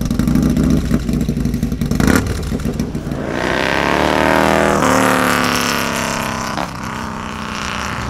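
Harley-Davidson Milwaukee-Eight V-twin, built to 135 cubic inches with the Moonshine Horsepower Devil Runner kit and 610 big-bore cam, rumbling close at first. About three seconds in it accelerates past, its pitch dropping as it goes by, then fades into the distance.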